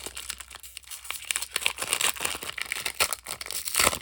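Trading card pack wrapper being torn open and crinkled by hand: a dense run of sharp crackles, loudest near the end.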